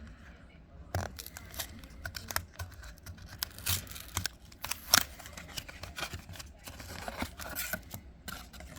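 Foil wrapper of a trading-card booster pack crinkling and tearing as it is opened, with the cards handled, in irregular crackles and sharp clicks, the sharpest about five seconds in.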